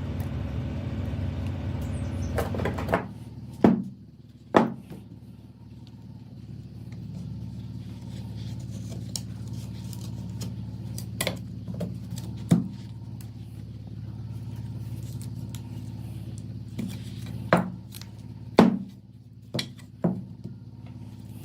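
A motor-driven workshop tool runs with a steady hum and stops about three seconds in. After that, a fainter hum carries on under scattered sharp metal clicks and clinks, like small steel gun parts being handled and set down.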